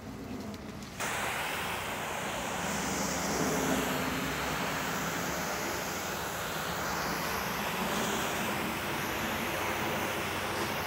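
Low-pressure soft-wash spray wand switched on about a second in, then a steady hiss of chemical rinse jetting from the nozzle.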